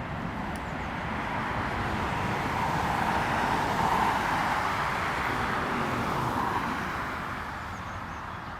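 Jet airliner's engines during a departure from the runway: a broad roar that swells to its loudest about four seconds in, then fades away.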